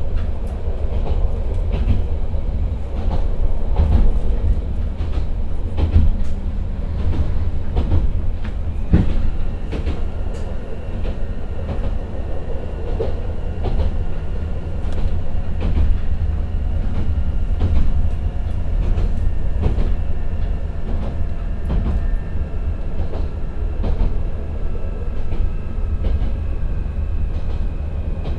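Interior of the Akechi 10 diesel railcar running downgrade: a deep rumble from the running gear, with clicks over the rail joints. About ten seconds in, the car's distinctive hold-back (speed-control) brake comes on and adds a high whine in two tones that falls slightly as the car slows.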